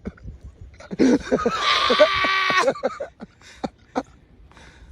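A person's loud, high-pitched cry lasting a little under two seconds, starting about a second in, followed by a few faint knocks.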